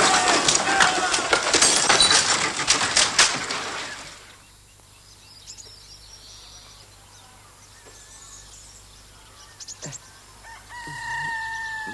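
Chickens in a loud flurry of squawking and wing flapping that dies down after about four seconds, followed near the end by a steady held call.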